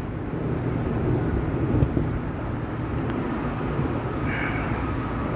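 Steady low wind rumble on the microphone, with a faint steady whine coming in about four seconds in as an electric trolling motor moves the small fishing boat.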